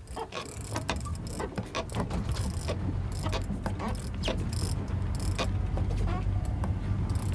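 A big-game conventional fishing reel being cranked hard under load, its gears and handle giving off irregular clicking and ratcheting, over a steady low rumble.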